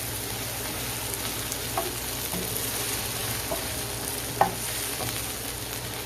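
Garlic and vegetables sizzling in a hot skillet while being stirred, with a spoon now and then clicking against the pan, most sharply about four seconds in.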